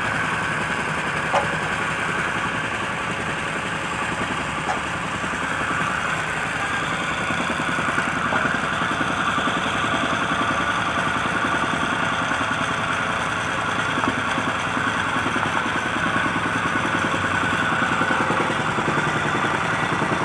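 A motor engine running steadily at a constant speed, with a few light clicks.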